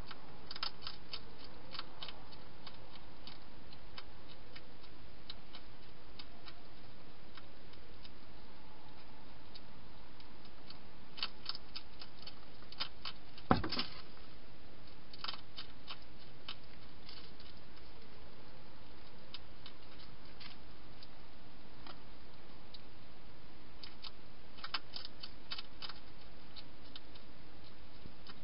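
Wild hedgehog crunching dry food inside a plastic feeding box, heard as scattered bursts of sharp clicks, with one louder knock about halfway through. A steady hiss lies underneath.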